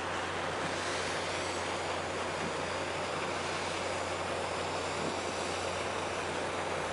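Steady rush of water and wind on the open deck of a car ferry leaving port, over a low, even hum from the ship's engines.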